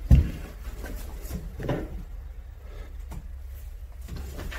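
A sharp knock just after the start, then faint, irregular scrapes and clicks as the Xiaomi e-scooter's wheel is turned by hand, its bent brake disc dragging on the brake caliper at one spot.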